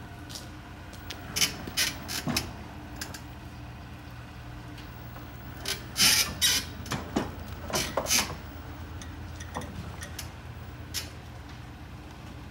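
Electric pallet jack moving a loaded pallet over a truck's metal liftgate plate: sharp clanks, clicks and squeaks come in two clusters, about a second and a half in and again around six to eight seconds, over a steady low hum.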